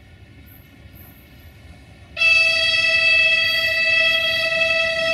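A train horn blasts about two seconds in, starting suddenly and holding one steady pitch to the end.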